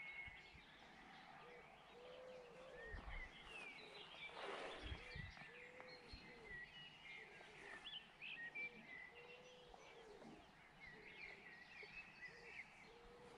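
Faint outdoor birdsong: scattered high chirps and trills, with a lower rising-and-falling call repeated every second or two. A few soft wind rumbles on the microphone.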